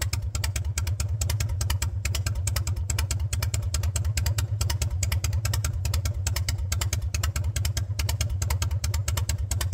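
Harley-Davidson V-twin motorcycle engine idling steadily, with a rapid, regular beat of exhaust pulses.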